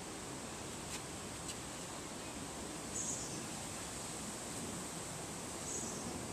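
Outdoor background ambience: a steady even hiss, with two small clicks about a second in and a couple of brief faint high chirps later on.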